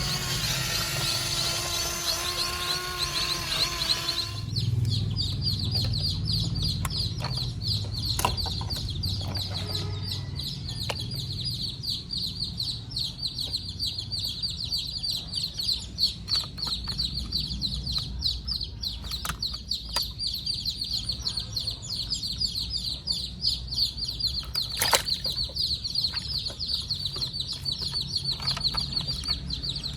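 A few seconds of a short pitched tune, then a continuous fast, high-pitched chirping over a low rumble, with occasional sharp clicks.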